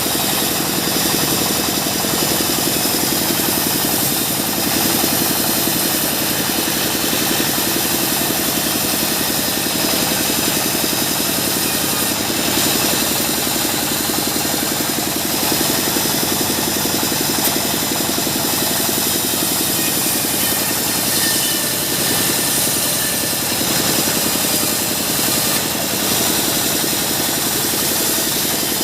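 Sawmill bandsaw machinery running steadily, a continuous engine-driven hum with no pauses.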